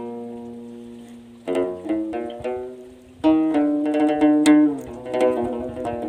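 Moroccan lotar, the skin-topped Amazigh lute, plucked in a solo improvised taqsim. A held note dies away, a short run of plucked notes follows about a second and a half in, then a strong note rings on for over a second before quicker notes near the end.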